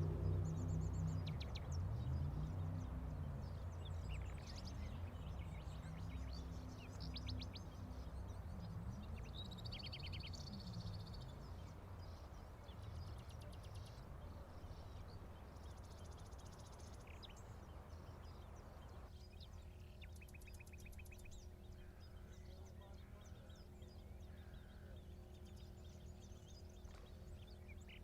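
Small birds chirping and trilling over a low rumble that wavers in pitch and fades away over the first dozen seconds.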